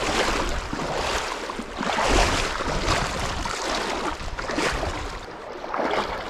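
Wading boots splashing through a shallow, rocky stream, a splash with each stride, over the steady rush of the water. A low rumble runs underneath and drops away near the end.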